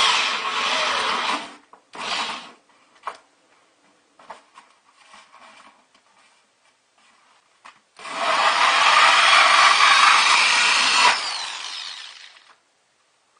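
Power drill with a hole saw cutting a 2 1/8 inch hole through a bucket liner. It runs for about a second and a half, gives a short burst near two seconds, then a few light knocks and scrapes, and runs again from about eight seconds before winding down near eleven.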